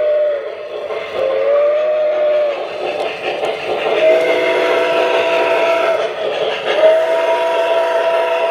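Electronic steam whistle from an MTH model steam locomotive's sound system, blown in several long blasts, one of them bending up in pitch as it starts. Underneath is the steady clatter of model trains running on the track.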